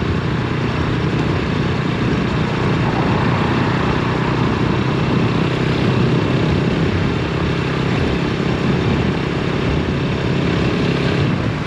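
Motorcycle engine running steadily at cruising speed, its drone mixed with a constant rushing of riding wind and road noise.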